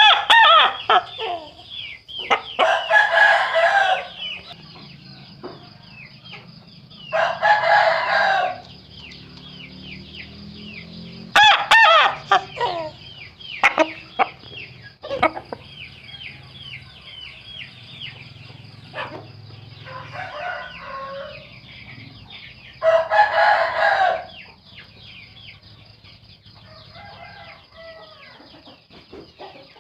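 Roosters crowing in turn, about six loud crows of roughly a second each spaced several seconds apart, with a fainter one near the end. Each rooster's crow sounds different, some with a horn-like voice. A steady patter of high chirps runs underneath.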